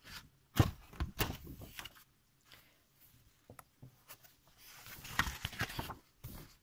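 Pages of a book being turned and handled: a loud paper rustle with soft knocks about half a second in, then scattered light clicks, and another rustle around five seconds in.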